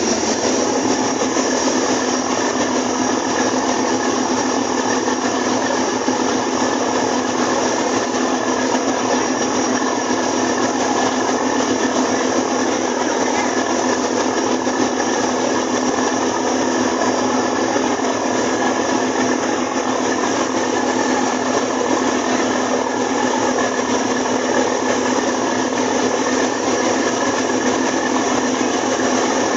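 A boat's engine running with a steady drone, under an even wash of noise.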